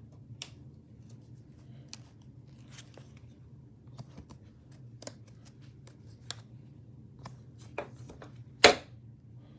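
Trading cards being handled and flipped through by hand: scattered light clicks and slides of card against card over a low steady hum, with one louder short card rustle or snap near the end.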